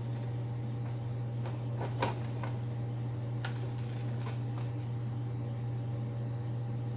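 A steady low hum, like a machine or appliance running, with a few light clicks and rattles, about a second and a half to four and a half seconds in, as wire and tools are handled on the bench.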